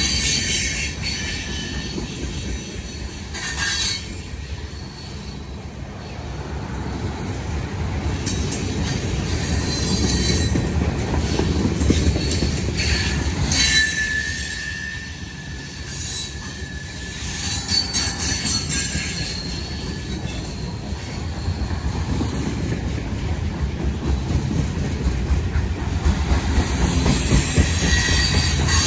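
Freight cars of a manifest train rolling past, steel wheels rumbling steadily on the rails, with rhythmic clicks and brief high-pitched wheel squeals.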